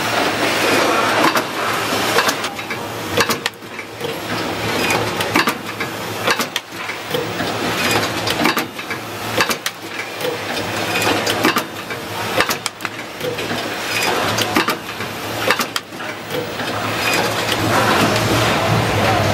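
Automatic switch assembly machines running: a dense mechanical clatter full of frequent sharp clicks and knocks, growing louder near the end.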